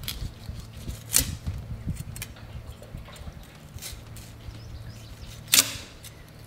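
Fillet knife working along a striped bass on a cleaning table: a few sharp clicks and taps from the knife and fish, the loudest about a second in and about five and a half seconds in, over a low steady hum.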